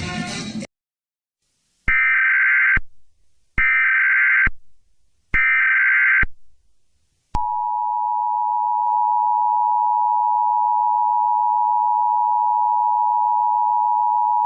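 Emergency Alert System activation: three short bursts of SAME digital header tones, a little under a second each. Then, at about seven seconds in, the steady two-tone EAS attention signal begins and holds.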